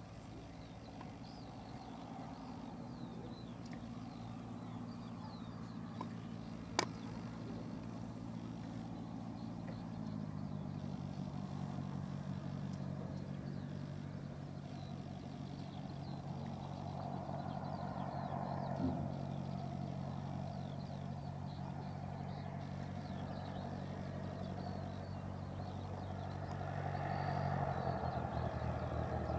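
Light single-engine Cessna's piston engine and propeller droning steadily as the aircraft approaches, growing louder towards the end. The engine note shifts abruptly about a third of the way through. A single sharp click comes about seven seconds in.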